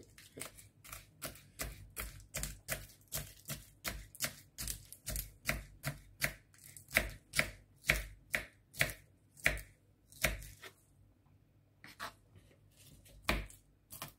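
Kitchen knife slicing lettuce into thin strips on a wooden cutting board: a steady run of quick cuts, about three a second, with a short pause near the end before a few more cuts.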